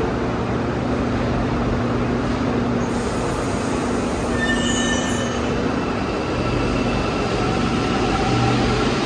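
Santiago Metro Line 1 rubber-tyred train running, a steady loud noise with a low hum under it and a few faint short high squealing tones about halfway through.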